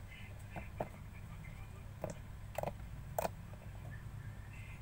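Rose gold slime being squished and stretched by hand, giving a few short sticky clicks and pops, the loudest about two and a half and three seconds in.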